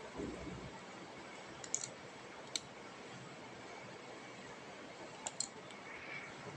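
A small metal-cased Bluetooth mini audio amplifier being handled and turned over on a desk: a soft thump at the start, then a few scattered sharp clicks and taps, over a steady faint hiss.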